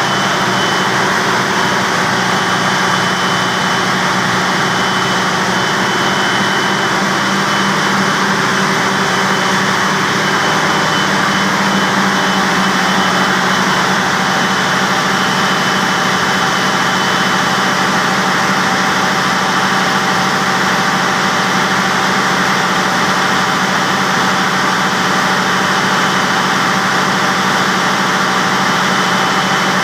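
Diesel generator engine running steadily at constant speed, with a thin steady high whine over the engine noise.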